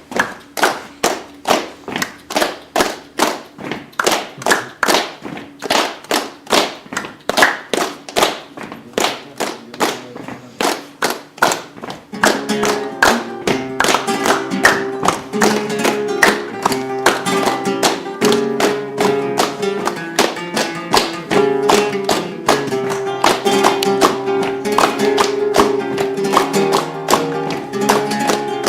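Flamenco palmas: hands clapping a steady, even beat in the four-count tango compás. About twelve seconds in, flamenco guitar music comes in, and the clapping carries on over it.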